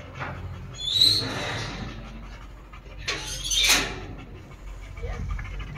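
Chow chow dogs panting during mating, with a short high whine about a second in and a louder huffing burst about three seconds in.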